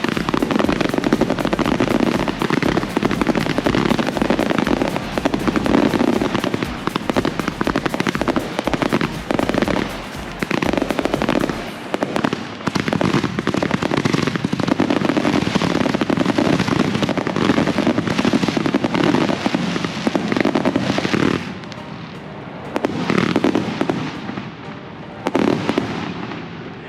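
Consumer fireworks firing in a dense, continuous barrage of rapid bangs and crackles, thinning to a few separate bursts with short gaps near the end.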